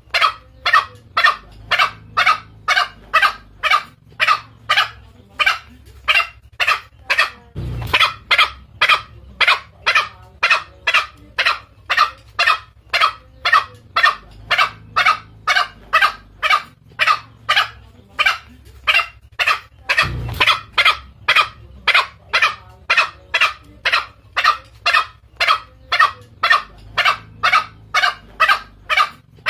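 Green junglefowl lure call: short, sharp calls repeated about twice a second in a steady unbroken series, used to draw in territorial males. A dull low thump comes twice.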